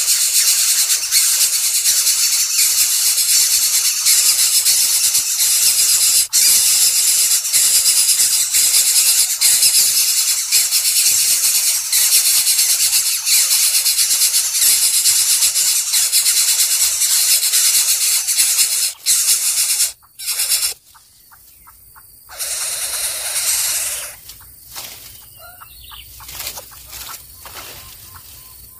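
Loud, steady high-pitched hissing that cuts off suddenly about twenty seconds in, followed by quieter, broken-up sounds.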